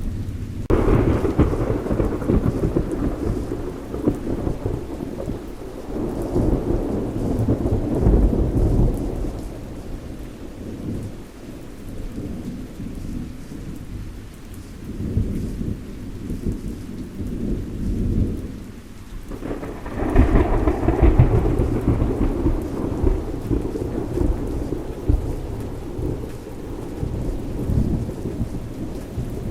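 Thunderstorm: two thunderclaps, one about a second in and another about two-thirds of the way through, each rolling off into long low rumbling, over steady rain.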